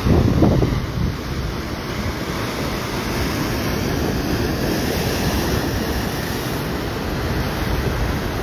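Ocean surf breaking and washing over sandstone rocks, a steady rushing of water. Wind buffets the microphone throughout and is loudest as a low rumble in the first second.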